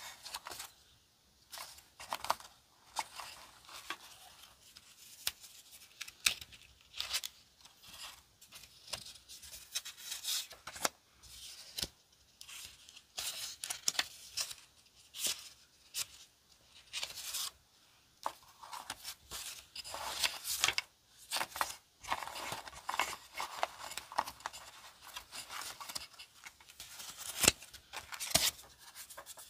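Stacks of round paper and card cutouts are being handled, shuffled and flicked through. The sound is a dense, irregular crisp paper rustling with many light ticks and taps.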